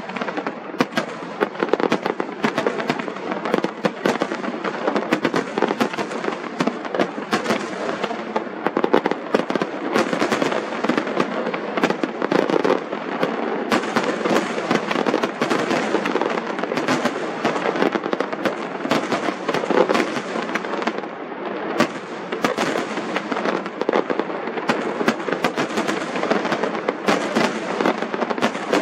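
Fireworks display at the height of a barrage: a dense, unbroken run of overlapping bangs and crackling reports, many sharp cracks following each other with no pause.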